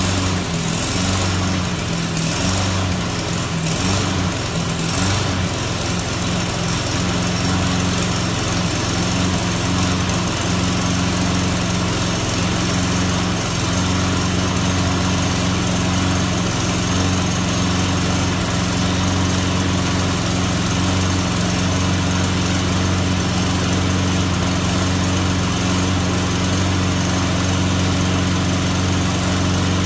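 Walk-behind lawn mower's small engine running steadily just after being started on a newly fitted carburetor. Its note wavers for the first several seconds, then settles and holds even. The automatic choke is working as the engine warms.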